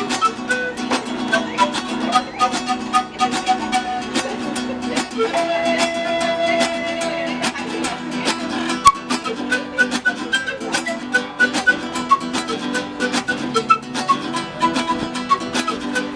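Acoustic guitar music played fast, a dense run of quick plucked notes with a melody above sustained low notes.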